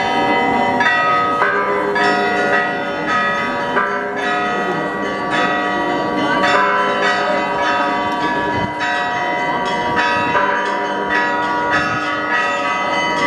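Several church bells pealing together, struck in a quick, continuous rhythm of about two strikes a second, each stroke ringing on under the next.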